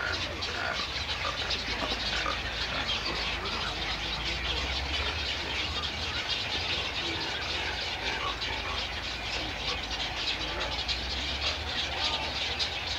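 Nesting colony of egrets and other herons: a steady din of many birds calling over one another.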